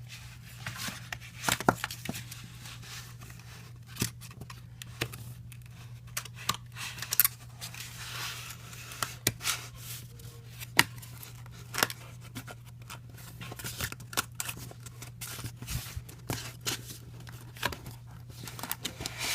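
Stiff cardboard being handled, punched out and folded: irregular snaps, taps and scrapes as the pieces of a cardboard VR viewer are pushed out and fitted together, over a steady low hum.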